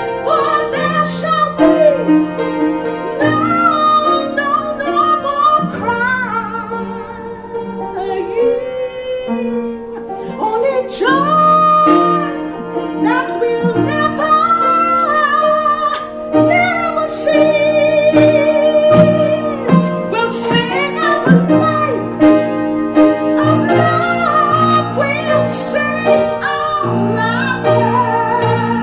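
A woman singing solo in long, gliding, ornamented lines with no recognisable words, over sustained low keyboard chords.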